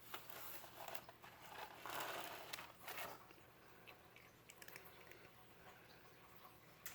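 Faint scratching and rustling of a cat pawing about inside a cardboard box, busiest in the first three seconds, then a few light ticks.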